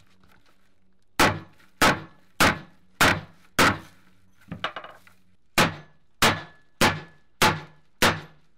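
A hatchet chopping into a heap of old fishing net and rope lying on wooden boards: about ten heavy blows in a steady rhythm, roughly one every 0.6 seconds, with a brief patch of lighter knocks midway.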